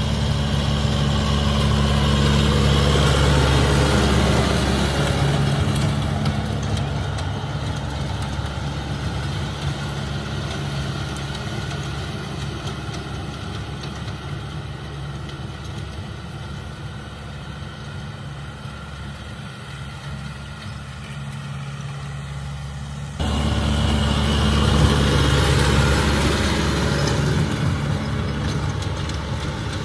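Farm tractor engine running steadily while the tractor works a field with a rear rotary tiller. The sound is loud at first, fades through the middle, and jumps back up abruptly about 23 seconds in.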